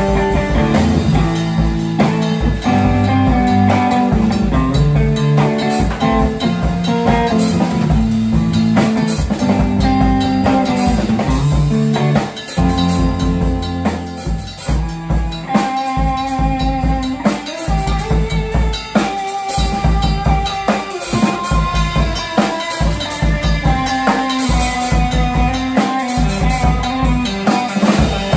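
Improvised jam on a CB-700 drum kit and electric guitar: bass drum, snare and cymbals keep a steady beat under electric guitar riffs. The playing thins out briefly about twelve seconds in, then picks up again.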